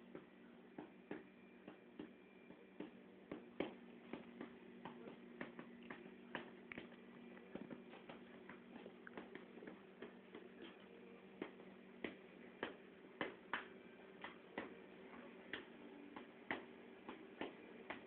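Light, irregular clicks and taps, about one or two a second, over a faint steady hum.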